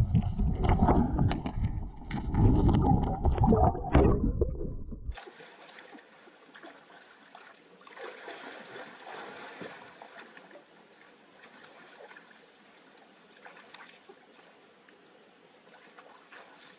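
Stream water heard from underwater: loud, muffled gurgling and bumping. It cuts off about five seconds in, leaving faint splashing and trickling as hands grope in the shallow water among the rocks.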